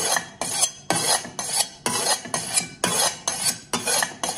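A dull Chinese cleaver being sharpened on the unglazed foot ring of an upturned ceramic plate: quick back-and-forth scraping strokes of steel on ceramic, about three a second.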